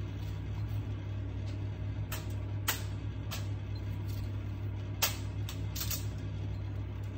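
Raw onion slices being placed by hand on a foil-lined tray of chicken wings: about half a dozen short, sharp crinkly taps of aluminium foil, over a steady low hum.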